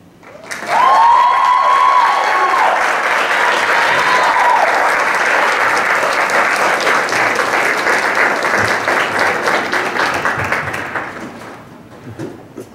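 Audience applauding after a song, starting about half a second in and dying away near the end. A few long high cheers ring out over the clapping in the first few seconds.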